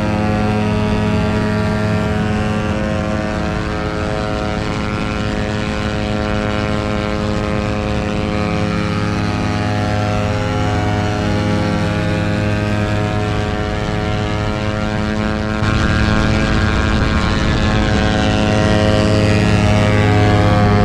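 Suzuki GSX-R150 single-cylinder motorcycle engine running steadily at high revs at highway speed, with wind noise over the microphone. About three-quarters of the way through it gets louder, with more rushing hiss.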